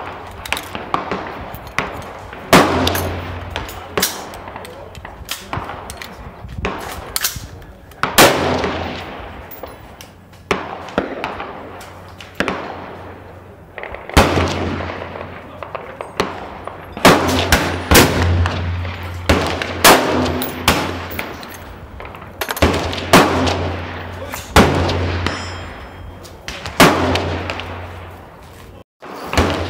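Repeated gunshots: about twenty sharp cracks in half a minute at irregular intervals, some less than a second apart, each trailing off in echo. There are too many for one single-shot rifle, so more than one gun is firing.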